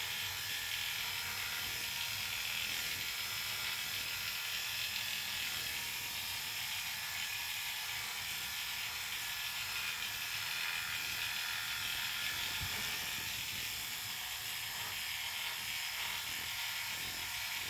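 Electric dog clippers running steadily as they cut through an Airedale terrier's coat.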